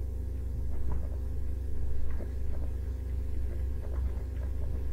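Steady low hum in the recording, with faint scattered light clicks and taps over it.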